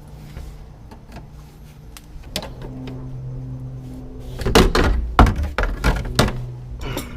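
Plastic under-engine cover being worked off its screws and clips, with a cluster of loud knocks and clicks about halfway through over a steady low hum.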